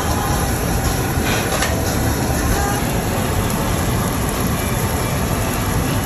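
Steady rushing roar of a yakiniku restaurant's tabletop smoke-extraction hoods and ventilation fans, constant throughout.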